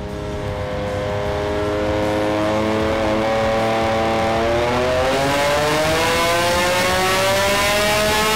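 Supercharged Yamaha YXZ1000R three-cylinder engine revving up under load on a hub dyno, a dyno pull. Its pitch climbs steadily, with a brief dip about three seconds in.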